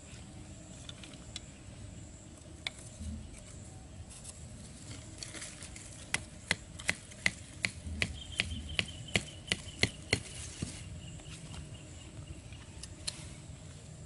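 A small hatchet knocking a thin wooden stake into the ground: a run of about a dozen sharp, evenly paced knocks, about three a second, in the middle, with a few single knocks before it.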